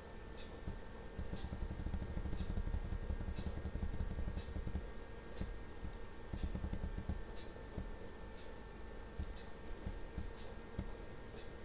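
Clock ticking at an even pace of about once a second, over a steady faint electrical hum and a low rumble that is strongest in the first few seconds.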